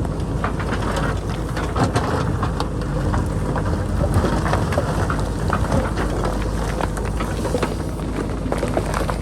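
JCB backhoe loader's diesel engine running steadily, with a dense, irregular crackle and clatter of loose rock and soil scraping and falling as the machine digs into the hillside.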